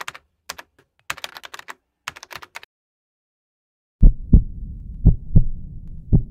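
Computer keyboard typing sound effect, a quick run of light key clicks for the first two and a half seconds, then a pause. About four seconds in, a series of loud low thumps, mostly in pairs, over a faint rumble.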